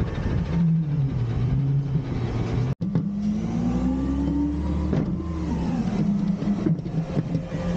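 Garbage truck engine running, cutting out for an instant just under three seconds in, then revving up over about two seconds and easing back down.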